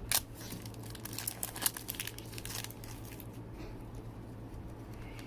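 Trading-card pack wrapper crinkling and cards being handled: a run of sharp crackles and rustles with a loud snap just after the start and another a little under two seconds in, then quieter rustling.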